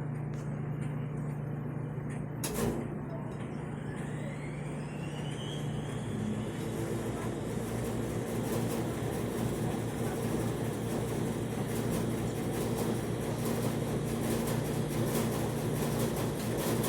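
Dexter WCN T-600 commercial washer in its final spin: the motor whine rises in pitch for a few seconds as the drum speeds up, then levels into a steady hum. One knock comes early, and a fast ticking rattle builds toward the end as the spin holds at speed.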